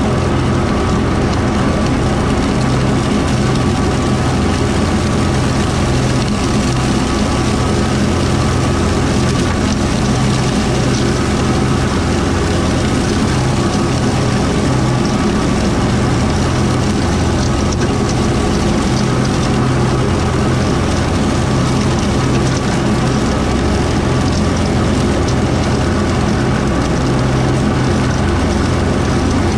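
Kubota M4-071D diesel tractor running steadily at a constant engine speed, driving a Woods BW12 batwing rotary mower.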